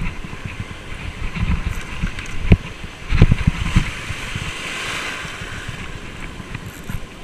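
Wind buffeting the microphone in uneven low gusts over the hiss of surf, which swells and fades around the middle.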